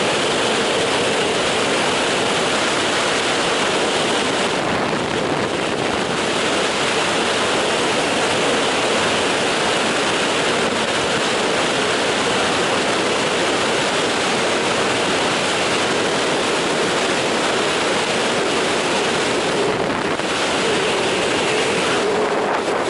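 Freefall wind rushing steadily over the camera's microphone, loud and unbroken, easing briefly about five seconds in and again near the end.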